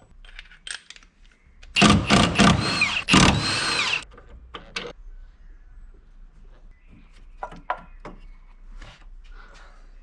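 Power tool motor run in two short bursts, its pitch rising and falling with each, followed by light clicks and knocks of tools being handled.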